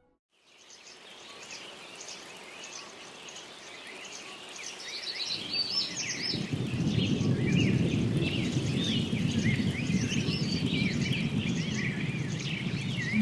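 A large flock of birds calling, many short overlapping calls at once, joined from about five seconds in by a low rushing noise that grows louder.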